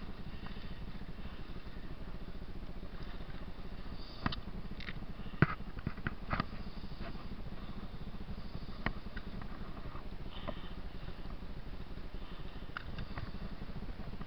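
Sharp clicks and knocks from a backpack being handled on dry leaf litter, in a cluster between about four and nine seconds in, the loudest at about five and a half seconds. Under them runs a steady low rumble.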